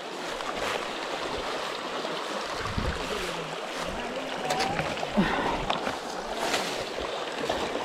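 A stream flowing, a steady rush of running water.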